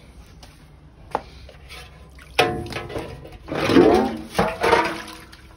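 Loose grain feed poured from a plastic bag into a metal basin, and the basin clanking and scraping on the floor with brief metallic ringing. The louder clatter comes in two spells, about two and a half and four seconds in.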